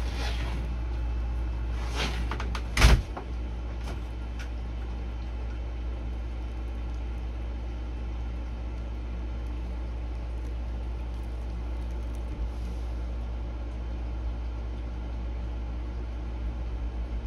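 Steady low background hum with a few light clicks and one sharper knock about three seconds in.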